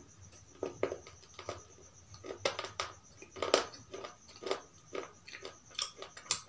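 Close-up crunchy chewing: a series of sharp crisp crunches at an irregular pace, about two a second.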